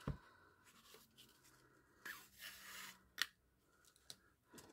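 Faint rustling and scratching of ribbon and sewing thread handled in the fingers while the centre of a ribbon bow is stitched off: a soft knock at the start, a scratchy rustle lasting about a second from two seconds in, then a sharp click.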